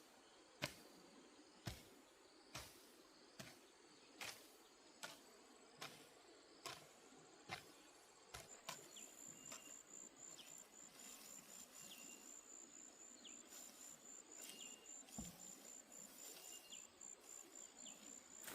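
Quiet outdoor background with a faint knock about once a second for the first half. After that a high, finely pulsing insect trill runs on, with a few short faint chirps under it.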